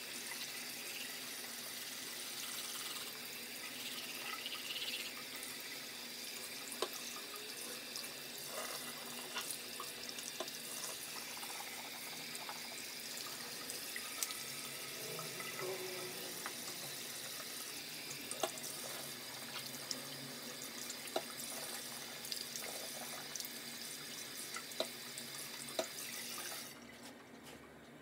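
Bathroom tap running steadily into a sink, with occasional small knocks. The water shuts off about a second before the end.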